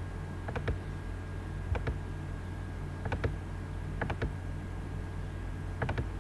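Computer mouse clicking: about five clicks, each a quick double snap, spaced a second or so apart, over a steady low hum.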